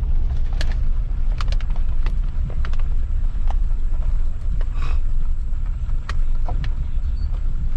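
Low, steady rumble of a truck driving slowly over rough ground, with scattered sharp clicks and knocks.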